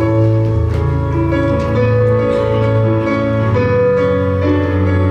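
Live worship band music: keyboard chords held over steady low bass notes, at an even level.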